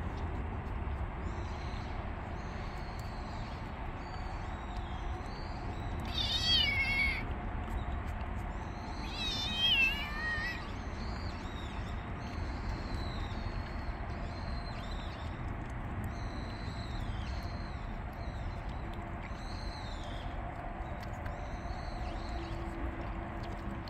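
Kittens mewing while they eat, two louder, wavering high-pitched meows about six and nine seconds in, with fainter short high calls in between.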